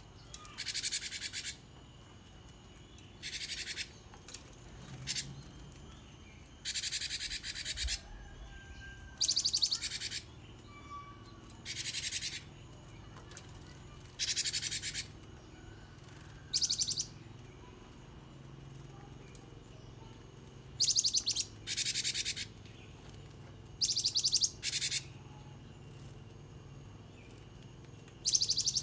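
Caged cinereous tit (gelatik batu) calling in about a dozen short bursts of rapidly repeated high notes. Each burst lasts under a second and comes every second or two, with a longer pause about two-thirds of the way through.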